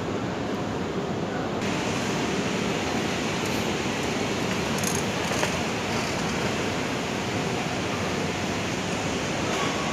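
Steady rushing noise of a station concourse's background ambience, with no distinct events; a brighter hiss comes in suddenly about a second and a half in.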